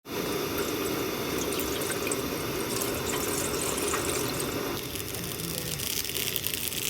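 Water running or being poured, a steady rushing that changes character about five seconds in, ending in a brighter, higher hiss.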